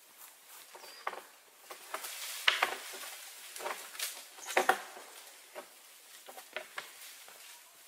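Red deer stag browsing at an overhead branch and shifting on dry leaf litter: irregular rustling, cracking and snapping of leaves and twigs, loudest twice, about two and a half and four and a half seconds in.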